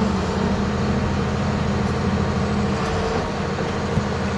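John Deere 690C excavator's diesel engine running steadily, heard from inside the cab, with the hydraulics engaged. A single faint click comes near the end.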